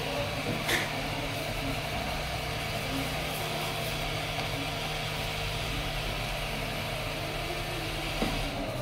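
Hot-air rework station's blower running with a steady airy hiss and a low hum, dropping away near the end.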